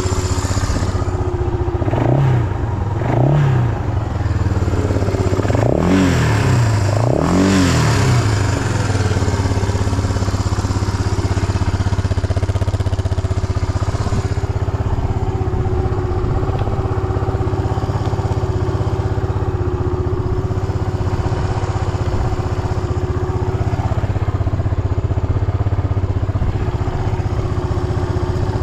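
Suzuki Goose 350's single-cylinder four-stroke engine idling, blipped four times in the first few seconds, each rev rising and falling back quickly, then settling to a steady idle. It revs up cleanly with no abnormal noises.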